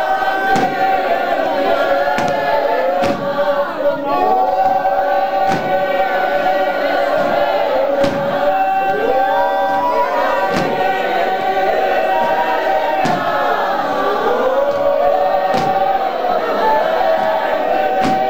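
Choir singing together in harmony, with sharp percussive hits every few seconds.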